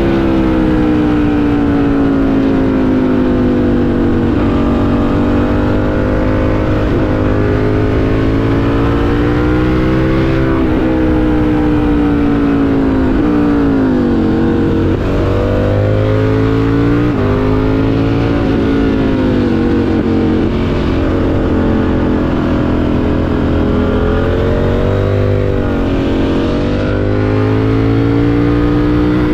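KTM 890 Duke's parallel-twin engine heard from the rider's position while riding, its pitch climbing under throttle and dropping off repeatedly as the bike accelerates and slows through a run of bends.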